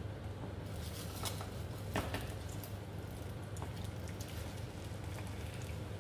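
Chive-and-egg pancake batter sizzling and crackling in a small nonstick frying pan, the sizzle picking up less than a second in, with scrapes and sharp knocks of a plastic spatula against the pan, the loudest about two seconds in. A steady low hum runs underneath.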